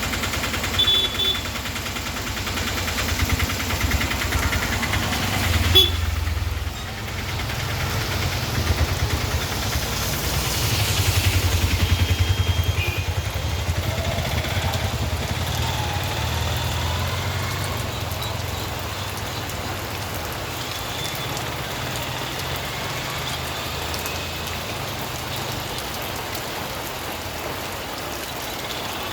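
Steady rain falling, with a low rumble underneath that swells and fades a couple of times.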